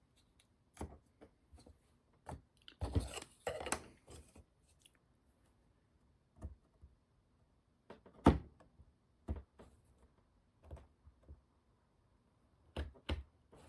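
Scattered light taps and knocks of small model parts and hand tools being picked up and set down on a workbench, the sharpest about 8 seconds in and two close together near the end.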